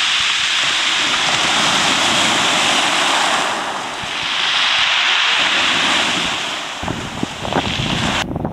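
Surf washing up over a pebble beach in two surges, a hiss that swells and falls each time. Near the end, wind buffets the microphone in gusts.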